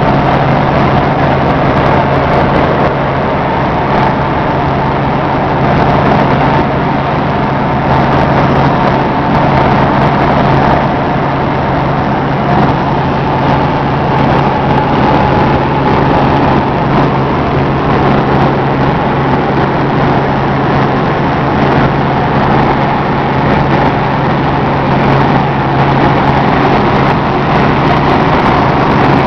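Helicopter running steadily, heard from inside the cabin: a loud, even drone with a constant low hum that does not change.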